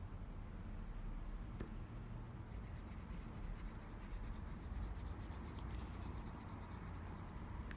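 Colour pencil scratching on paper, shading leaves with quick back-and-forth strokes that become fast and even from about two and a half seconds in.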